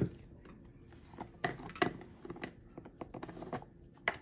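Light clicks and taps of a spoon and spice containers being handled while ground spices are measured out, with one sharp click at the start and scattered smaller taps after it.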